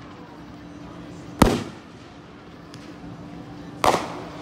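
Fireworks bursting: two loud bangs about two and a half seconds apart, each trailing off briefly.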